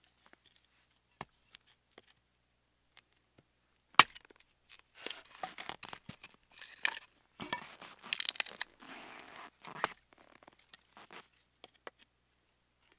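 A hatchet splitting a small log: a few light taps, then one sharp, loud strike about four seconds in. Several seconds of wood cracking, splintering and crunching follow as the split pieces are worked apart by hand, fading to small clicks near the end.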